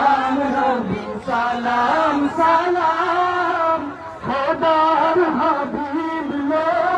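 A man's voice singing an Islamic devotional song, a salam to the Prophet, as a melodic chant with long, wavering held notes.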